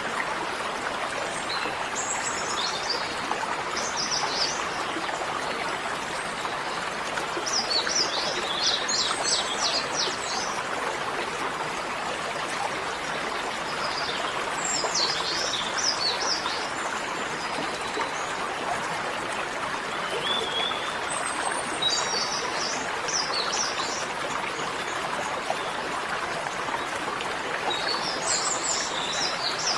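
Bird chirping in short runs of quick high notes about every six seconds, over a steady rushing hiss.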